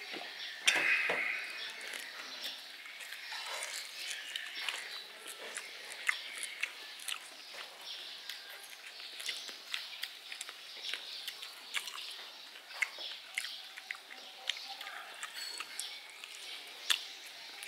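Eating at a table: chewing and eating mouth noises with frequent small clicks and clinks of spoons and bowls, and a louder clatter about a second in. Birds chirp faintly in the background.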